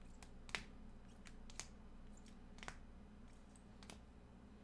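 Rigid plastic card holders clicking and tapping against each other as a stack of trading cards is flipped through, a sharp click about once a second with lighter ticks between, over a faint low hum.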